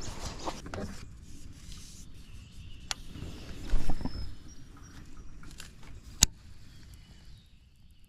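Knocks and clicks from fishing gear being handled in a plastic kayak, over a low rumble. The loudest is a dull thump a little under four seconds in, then a sharp click about six seconds in.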